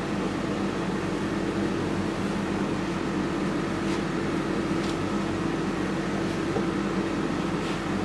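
Steady mechanical hum of a running appliance motor: a few fixed tones over an even noise that does not change.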